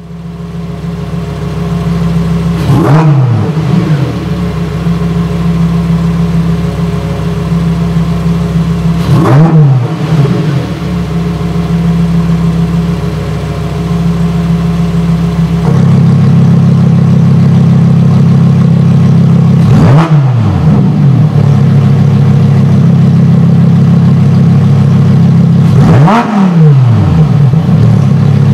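Lamborghini Huracan Performante's 5.2-litre V10 starting up, then idling with four sharp throttle blips about six seconds apart. The engine note rises and falls quickly with each blip. The idle tone changes and grows louder about halfway through.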